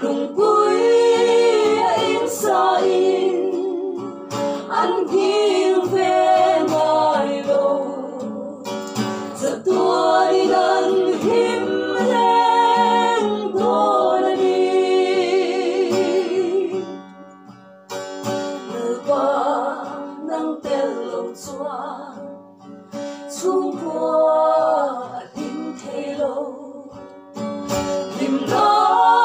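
A small group of women singing a Mizo song together in harmony, accompanied by an acoustic guitar. The singing eases off briefly past the middle, then picks up again.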